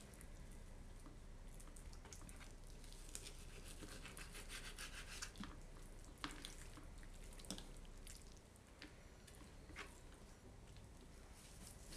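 Faint scraping of a kitchen knife cutting raw chicken thigh on a plastic cutting board, with a few sharper clicks of the blade on the board.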